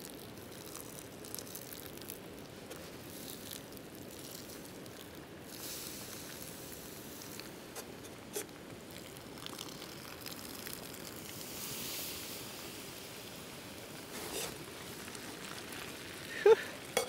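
Campfire crackling softly, with a few sharp pops, over a steady faint hiss. A brief louder sound comes just before the end.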